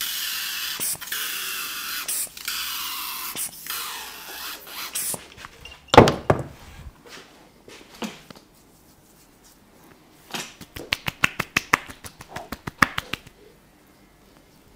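Cologne sprayed from a hose-fed barber's spray bottle: hissing sprays with short breaks over the first five seconds. Then one sharp slap about six seconds in, and a few seconds later a quick run of light slaps, hands patting the cologne onto the face and neck.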